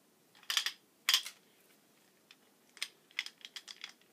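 Sharp metallic clacks and clicks from a Ridgid OO-R ratcheting hand pipe threader and its die head being handled: two louder clacks about half a second and a second in, then a quick run of small clicks near the end.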